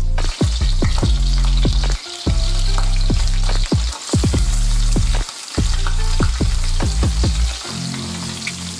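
Food sizzling as it fries in a hot pan, over background music with a heavy bass line.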